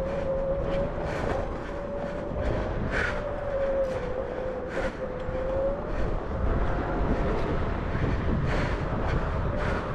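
Onewheel's electric hub motor whining at a steady pitch that wavers slightly with speed, over a heavy rumble from the tyre on rough dirt. Several short knocks come from bumps along the way.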